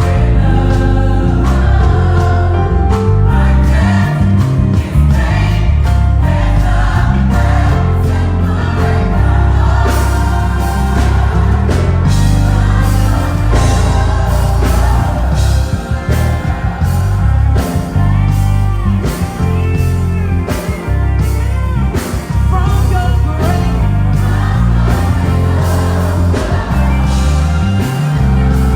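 Live gospel choir singing with a band, a loud electric bass guitar playing low notes under the voices and drums keeping a steady beat.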